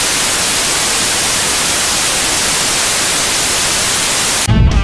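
Loud, steady analogue television static hiss, cutting off near the end as music begins.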